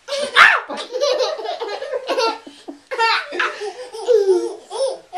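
Toddlers laughing in repeated bursts of high-pitched giggles.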